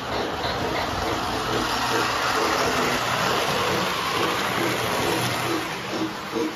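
O-scale three-rail model train running on the layout: a steady rumble of the wheels on the track and the locomotive's motor.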